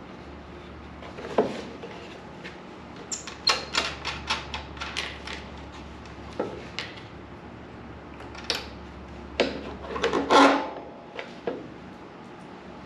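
Tools and small engine parts being handled during hands-on work on the engine: irregular clicks and knocks, a quick run of them a few seconds in and a louder clatter about ten seconds in.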